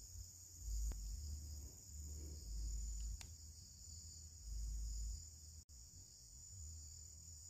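Steady high-pitched drone of insects such as crickets or cicadas. Several low rumbling bumps of handling noise and a couple of faint clicks come through in the first five seconds.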